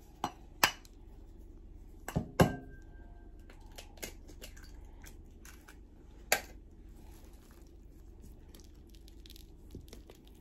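A handful of sharp knocks and clicks of kitchen utensils against bowls at irregular intervals, the loudest about two and a half seconds in and followed by a brief ringing of the bowl, with faint scraping and ticking in between.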